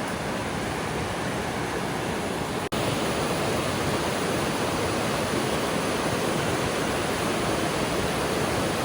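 Waterfall rushing steadily, a dense even roar of falling water. It drops out for an instant about three seconds in, then carries on unchanged.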